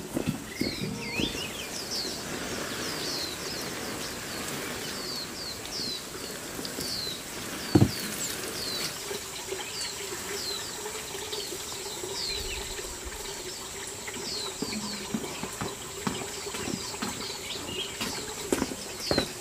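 Small birds chirping again and again with short downward-sweeping calls, over the soft patter of water sprinkling from a watering can's rose onto vegetable beds. A single sharp knock about eight seconds in.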